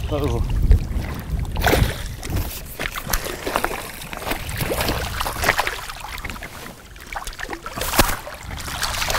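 A hooked zander thrashing and splashing at the river's surface as it is drawn in to a landing net: irregular splashes, the loudest near the end.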